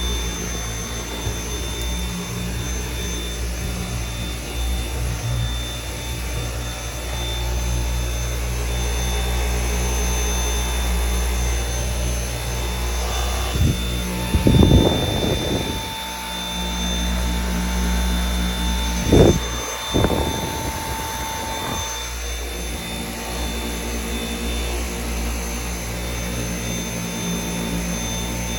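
Dyson V8 cordless stick vacuum running steadily with a high motor whine as it vacuums baking soda from car upholstery and carpet. About halfway through come two louder, rougher bursts.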